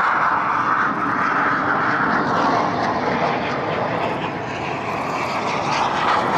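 Loud, steady engine noise of a small aerobatic aircraft flying a low pass, easing a little midway and rising again near the end.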